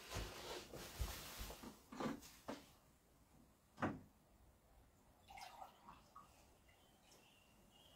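A person shifting about and handling things near the floor: rustling with a few soft knocks, one louder thump about four seconds in, then only faint small clicks.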